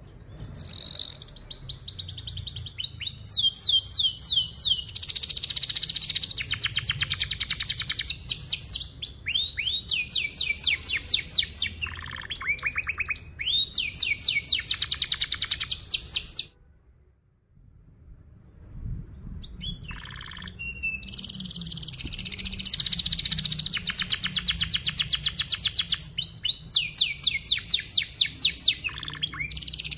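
Domestic canary singing a long, loud song of tight rolls: fast trills of rapidly repeated notes and chirps, with a near-silent break of about a second midway.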